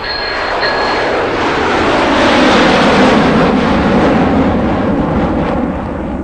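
Toyota 3T-C four-cylinder engine running loudly, swelling in volume over the first few seconds and then easing off slightly.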